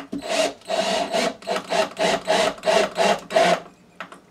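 Cordless drill-driver driving a screw through drywall into the wooden backer behind it, the trigger worked in short pulses, two or three a second. It stops about three and a half seconds in.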